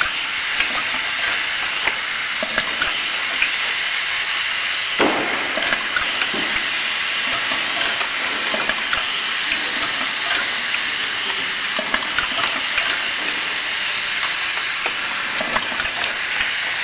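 Steady hiss with frequent light clicks and knocks and one louder knock about five seconds in: clear plastic bottles being handled and labeled on a manual labeling machine.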